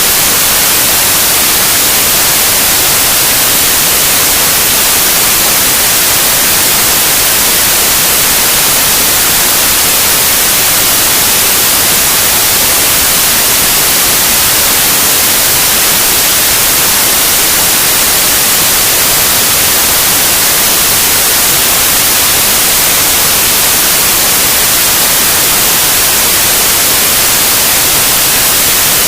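Loud, steady white noise: an even, unchanging hiss with no breaks or events.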